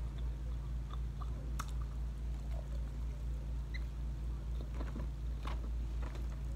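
Person biting and chewing crispy fried chicken, heard as a few faint, scattered crunches and mouth clicks over a steady low hum.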